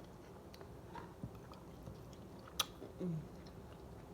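Close-miked mouth sounds of eating: chewing and lip-smacking with a few scattered wet clicks, the sharpest about two and a half seconds in, and a brief low hum near three seconds.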